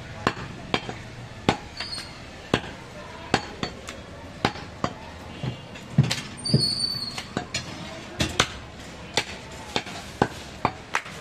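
Heavy butcher's cleaver chopping through goat meat and bone onto a wooden stump block: a run of sharp, unevenly spaced chops, about two a second.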